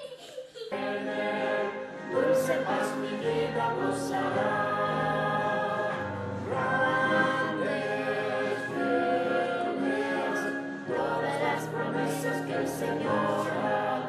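Choir singing a slow piece in long held chords, several voices together, beginning a little under a second in.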